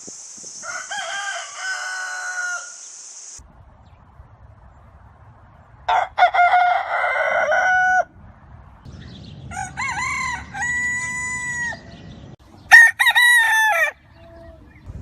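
Roosters crowing: four separate cock-a-doodle-doo calls of one to two seconds each, one after another, the last the loudest. A steady high hiss runs under the first crow and stops after about three seconds.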